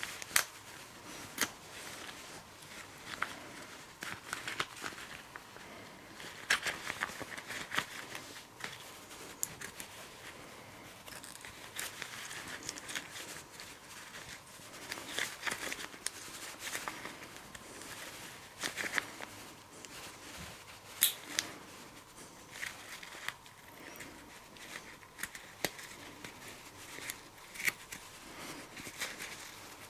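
Rubber-gloved hands working the piston assembly of an ATE brake master cylinder: irregular small metal clicks and taps from the piston, spring and seals over the crinkly rustle of the gloves rubbing on the parts.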